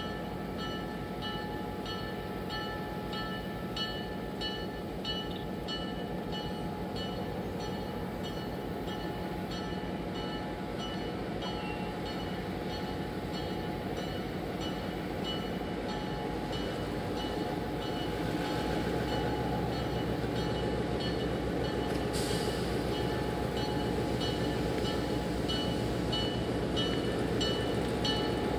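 Diesel locomotive engine running as it pulls cars slowly toward the listener, getting louder and heavier about two-thirds of the way in as it works harder. A bell rings over it in a steady, even rhythm.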